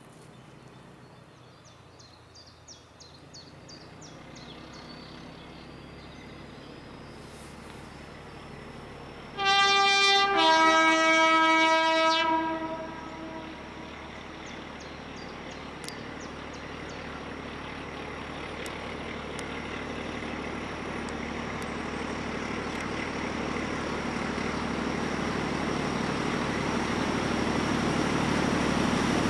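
BR Class 14 diesel-hydraulic locomotive sounding its two-tone horn about ten seconds in: a short high note, then a longer low note. Around it, the train of the diesel and a steam locomotive approaching, growing steadily louder.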